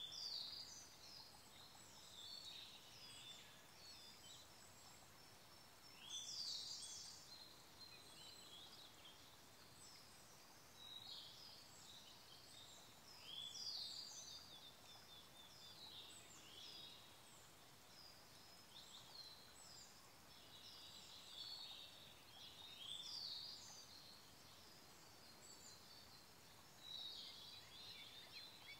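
Siberian blue robin singing short, bright phrases, repeated every few seconds, over the faint steady rush of a small stream.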